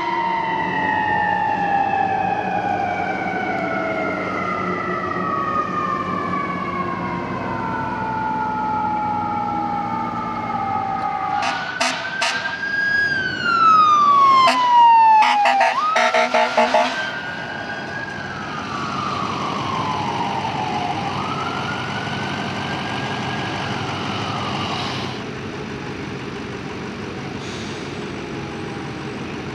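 Emergency-vehicle sirens on responding fire apparatus and police cars: a siren winding slowly down in pitch, then about halfway a loud cluster of short horn blasts over a siren sweeping up and down, and another siren wail rising and falling before it eases off, with truck engine sound underneath.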